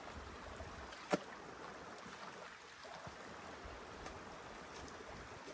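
A small shallow creek flowing steadily, a soft continuous rush of water, with one sharp click about a second in.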